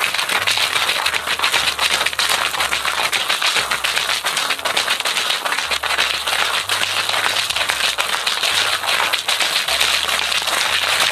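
Cocktail shaker filled with ice and the drink's ingredients shaken hard, the ice rattling fast and continuously inside it to chill the drink well.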